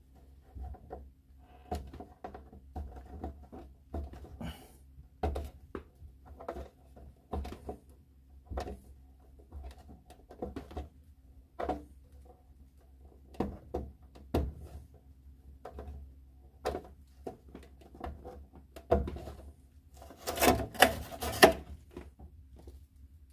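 Hands handling a fridge freezer's plastic fittings while peeling off protective stickers: irregular light knocks, taps and rubs, with a louder flurry of knocks near the end, over a steady low hum.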